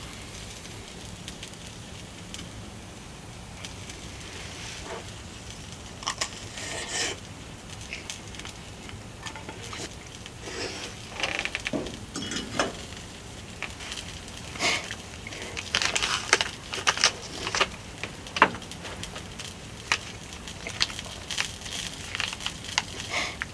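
Wood fire crackling, with irregular sharp pops and snaps over a low hiss, growing busier about halfway through.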